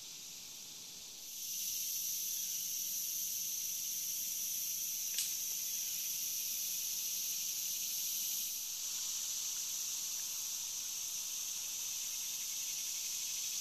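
Steady high-pitched drone of a summer insect chorus, growing louder about a second in, with one brief click near the middle.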